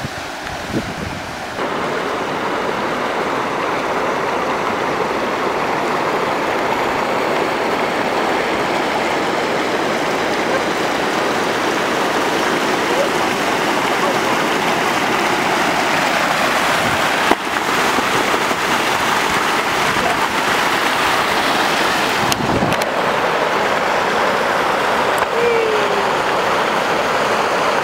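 Steady rush of river water pouring over a low rocky waterfall.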